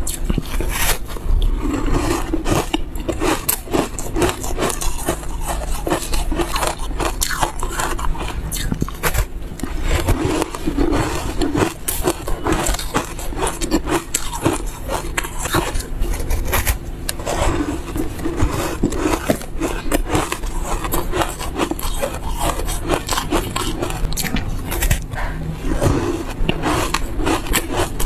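A block of ice coated with buckwheat powder being bitten and chewed close to a clip-on microphone: a dense, irregular run of crunching, crackling bites.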